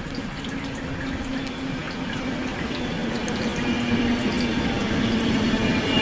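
Steady rain falling, with a low steady hum underneath that slowly grows louder.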